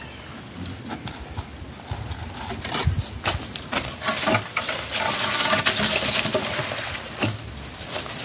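A wire-and-pole farm gate being unhooked and dragged open by hand: scattered knocks and rattles, with scraping and rustling that grow louder from about three seconds in as the gate is pulled through dry leaves.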